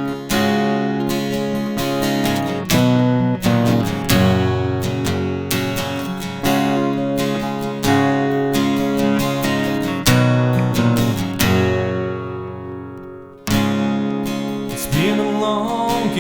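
Acoustic guitar playing a song's introduction, picked and strummed chords with a steady pulse. Near the middle one chord is left to ring and fade for a few seconds before the playing starts again.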